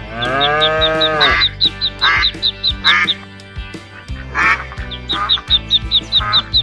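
Comic background music with a steady bass line and a fast run of short high chirps, with short squawky sound effects laid over it. In the first second a long swooping tone arches up and back down.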